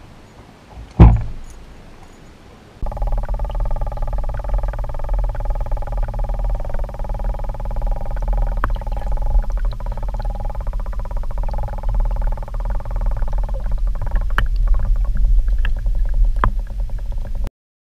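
A single sharp thump about a second in. Then, with the microphone underwater, a steady muffled hum with a wavering whine over it and a few faint clicks, which cuts off suddenly near the end.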